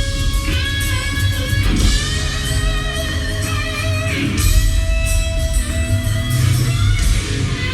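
A rock band playing an instrumental break between vocal lines: electric guitar with held, bending notes over bass guitar and drums.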